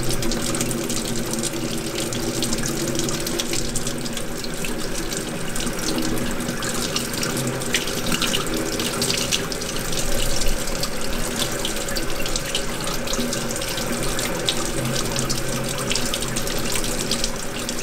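Tap water running in a steady stream onto a gloved hand and splashing into a stainless steel sink.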